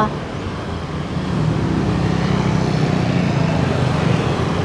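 Motor scooter engines running as scooters ride over the crossing, with road traffic behind; the nearest engine grows louder about a second in and holds steady.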